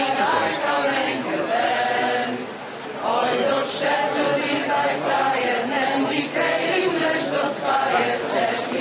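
A choir singing a Yiddish song unaccompanied, with a short break between phrases about three seconds in.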